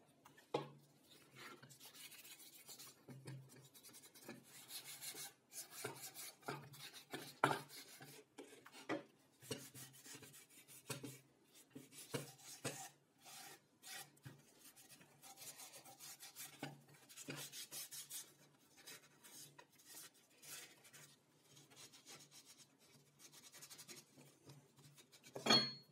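Plywood parts of a homemade knife-sharpening jig being handled, slid and set down on a workbench: irregular scraping and rubbing of wood with light knocks, and one louder knock shortly before the end.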